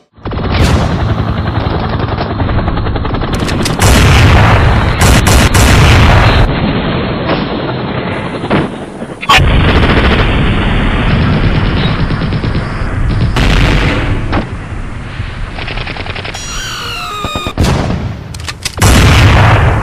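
Battle sound effects on a soundtrack: sustained machine-gun fire and gunshots mixed with heavy booms of explosions, with a few short falling whistles about three-quarters of the way through.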